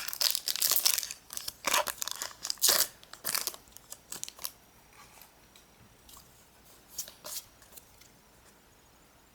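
Foil booster pack wrapper being crinkled and torn open: a quick run of crackling rips for the first four seconds or so, then a few faint rustles.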